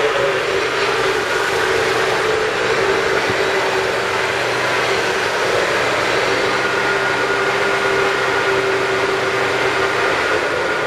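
Zero-turn riding mower's 20 hp Briggs & Stratton V-twin engine running steadily at working speed with the cutting deck engaged, a constant engine drone with a steady hum on top.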